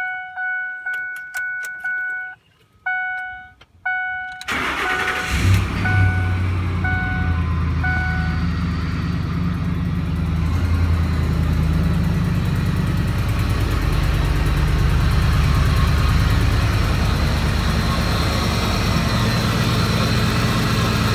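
A dashboard warning chime dings repeatedly. About four and a half seconds in, the Ford F-150's 5.4-litre Triton V8 cranks briefly and starts, then settles into a steady idle while the chime sounds a few more times and stops.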